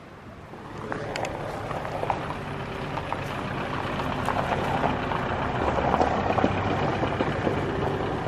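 Small flatbed truck's engine running as the truck drives off, the sound growing steadily louder over several seconds.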